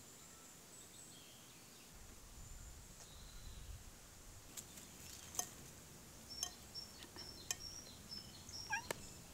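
Faint garden ambience: small birds chirping in short high notes, with a few sharp clicks in the second half.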